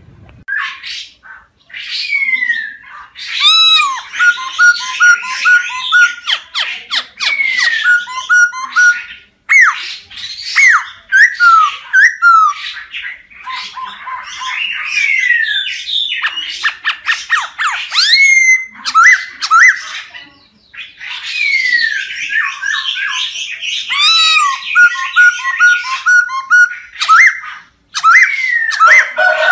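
Laughingthrush singing a long, loud, varied song: clear whistled slurs, quick runs of repeated notes and harsh rasping notes, broken by short pauses about ten, twenty and twenty-eight seconds in.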